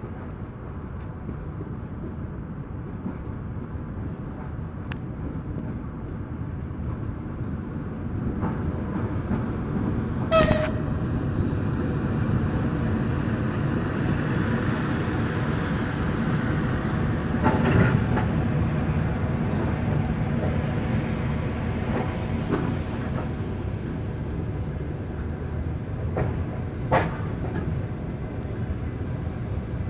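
EP2K electric locomotive and its passenger coaches pulling into the station: a low rolling rumble of wheels on rails that grows from about a quarter of the way in and holds as the coaches pass. A sudden short sharp sound about a third of the way in is the loudest moment, and a few sharp clicks and knocks from the wheels follow later.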